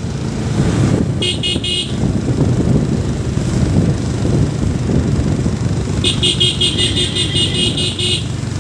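Motorcycle running along the road with steady engine and road noise, its horn beeping in quick pulses: a short burst of about four beeps a second in, then a rapid run of about a dozen beeps from about six seconds in.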